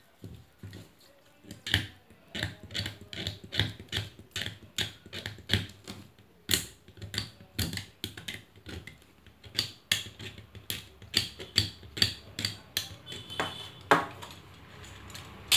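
A long, uneven run of sharp clicks, about two or three a second, from a small hand tool worked at the wire terminals of a sealed 6 V battery, with one louder knock near the end.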